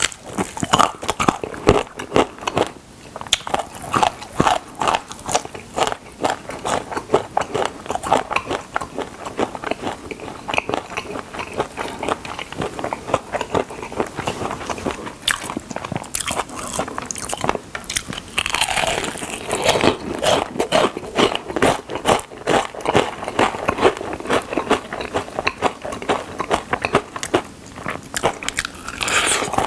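Close-miked crunching bites and chewing of fried chicken drumsticks, with crisp crackly crunches coming thick and fast.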